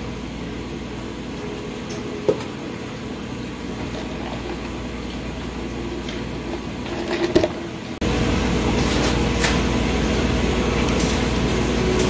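Steady mechanical hum of room machinery that steps up abruptly to a louder level about eight seconds in, with a couple of faint clicks before that.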